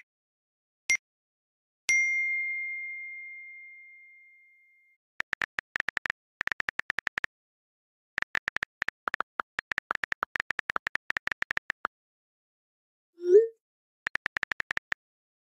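Electronic sound effects: three bright single-pitch dings, the last ringing out for a couple of seconds, then bursts of rapid short high clicks like text being typed out. A short rising blip comes near the end.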